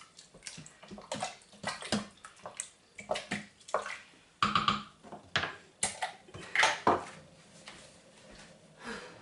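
Wooden spoon stirring a watery tomato-and-mince soup in the stainless-steel inner pot of an Instant Pot: irregular sloshing and scraping, with sharp knocks of the spoon against the pot.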